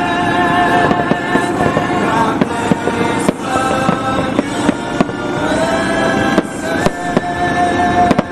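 Aerial firework shells bursting in a string of sharp bangs and crackles, over music with long held notes.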